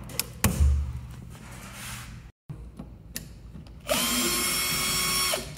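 Power drill/driver running steadily for about a second and a half near the end, a steady whine as it drives a fastener on a car's firewall. Earlier there is a single sharp click with a dull thump, from cutters snipping through the wiring loom.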